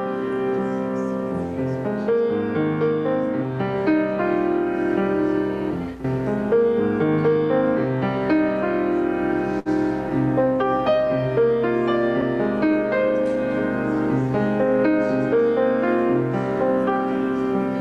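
Piano music playing a flowing run of sustained notes and chords, with two brief drops in the sound partway through.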